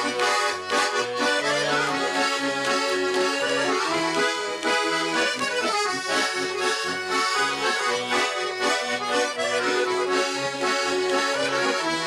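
Garmon, a Russian button accordion, playing an instrumental interlude between verses of a Russian folk-style song: a quick melody of short notes over a regularly repeating bass-and-chord accompaniment.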